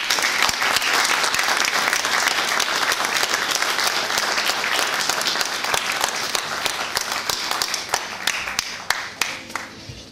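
Audience applauding: a burst of many hands clapping that starts suddenly and dies away about nine seconds in.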